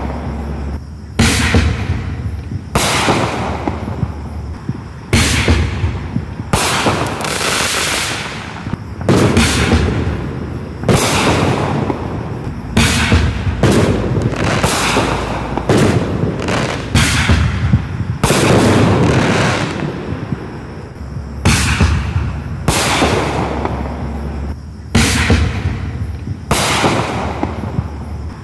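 Black Cat Bagged 12 Shot Artillery consumer artillery shells fired one after another from a mortar tube: a long string of sudden launch thumps and loud bursting reports, each fading out over a second or two.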